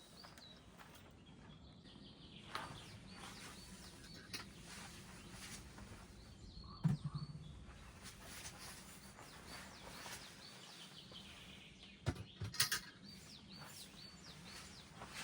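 Small birds chirping now and then over a faint outdoor background, with scattered knocks and rustles of camping gear being handled. The loudest sounds are a thump about seven seconds in and a few sharp knocks near the end.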